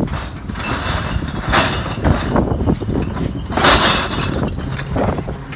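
Glass bottles clinking and rattling together inside a wheelie bin as it is moved, with two louder rattles.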